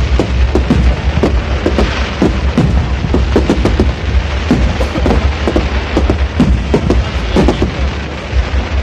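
Fireworks going off in a dense, irregular barrage of bangs and crackles, several a second, over a steady low rumble.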